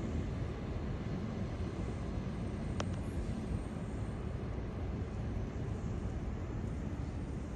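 Train rumbling steadily, with a single short click a little under three seconds in.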